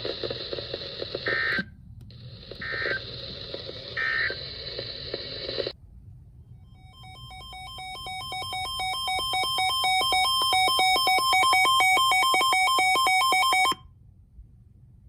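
Three short warbling digital data bursts from an Emergency Alert System broadcast, over radio hiss: the SAME end-of-message code closing the warning. From about 6 s a fast-pulsing electronic tone sequence swells louder, then cuts off abruptly about a second before the end.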